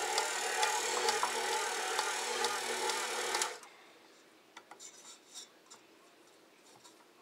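A KitchenAid Professional HD 475-watt stand mixer, with its all-metal gear drive, runs with a steady motor hum and gear clicking as its dough hook kneads a heavy batch of wet bread dough. About three and a half seconds in it cuts off suddenly. After that come only faint rubbing sounds of a hand on the dough in the steel bowl.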